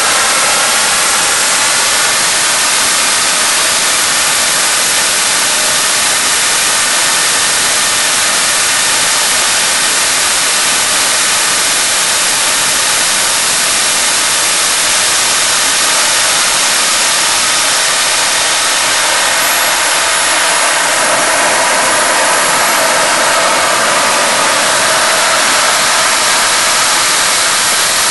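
Home-built turbojet made from a Garrett automotive turbocharger, running steadily with a loud, even rushing roar.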